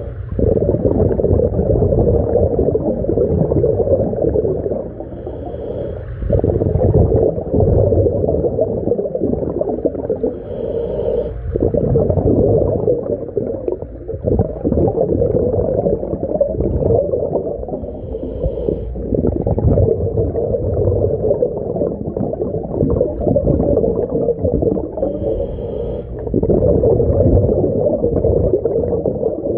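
Underwater breathing through a portable mini scuba tank's regulator: a steady low gurgle of exhaled bubbles, broken every five to seven seconds by a short pause and a faint hiss as a breath is drawn.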